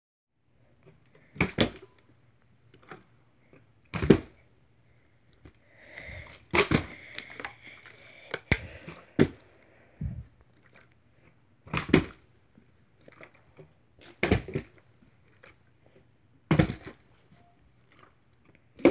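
Water bottle repeatedly flipped and landing on a bed: a series of sharp thumps, one every two to three seconds.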